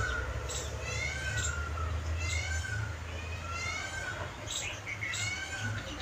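An animal calling over and over, about once a second: short high notes, each rising and then falling in pitch.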